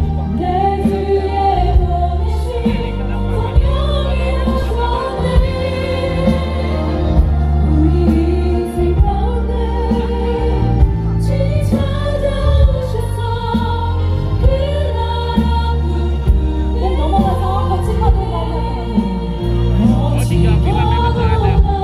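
Choir singing a Christian worship song with band accompaniment, over a steady bass line and light percussion.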